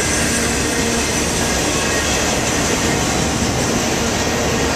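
Union Pacific freight train's autorack cars rolling steadily past at close range: a continuous loud rumble of steel wheels on the rails, with faint steady ringing tones over it.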